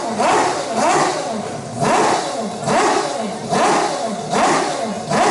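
Mazda 767B's four-rotor rotary engine revving in quick, regular rises and falls of pitch, about one every three quarters of a second.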